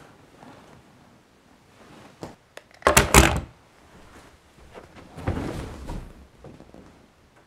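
Handling sounds in a small room: a quick cluster of loud wooden thunks about three seconds in, like an object being set down or a door or drawer shutting, then a softer rustling shuffle a couple of seconds later.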